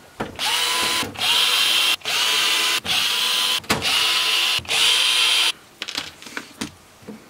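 Tonfon cordless electric screwdriver whirring in six short runs of under a second each, each starting with a brief rising whine as the motor spins up, backing screws out of the instrument's top cover. A few light clicks and knocks follow near the end.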